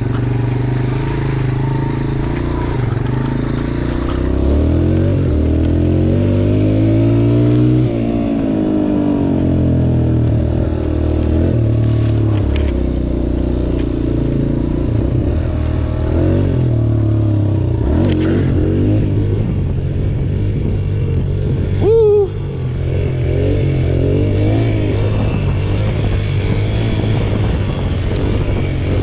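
Suzuki DR-Z125 dirt bike's single-cylinder four-stroke engine running as it is ridden, its note rising and falling with the throttle over and over. A brief louder burst cuts in about three-quarters of the way through.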